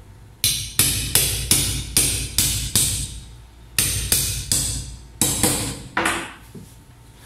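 A hammer striking the spine of a large kitchen knife to drive the blade through a trevally's hard bone: about a dozen sharp, ringing metal-on-metal strikes at roughly two or three a second, with a short pause about three seconds in.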